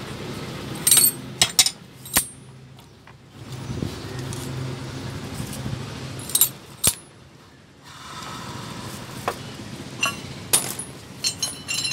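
Steel gears and shaft of an Ape auto-rickshaw gearbox clinking against each other and the aluminium casing as they are fitted and turned by hand: scattered sharp metallic clicks in small clusters, over a low steady hum.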